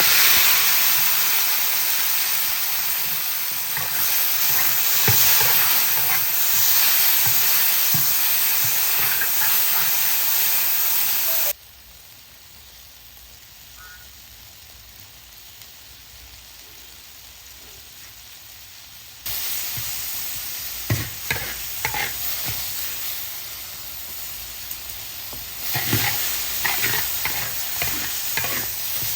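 Food sizzling as it is stir-fried in a wok, a steady frying hiss with scattered knocks. It drops suddenly to a much quieter sizzle about a third of the way in and comes back louder past the middle.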